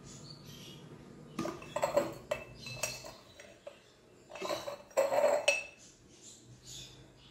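Spoon and spice containers clinking and tapping while spices are measured out for a marinade: a scattering of light, irregular clinks, a few ringing briefly.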